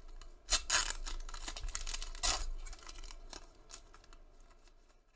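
Foil-lined wrapper of a Panini Prizm basketball card pack being torn open and crinkled in the hands. There are loud ripping crinkles about half a second in and again about two seconds in, then softer rustling handling that fades away.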